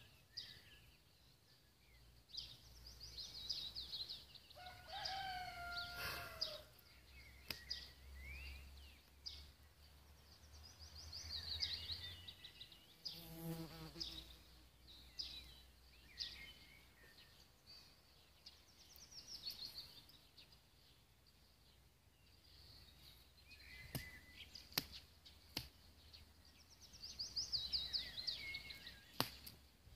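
Outdoor birdsong: songbirds singing in short high trilled phrases, several times, with a rooster crowing once about five seconds in.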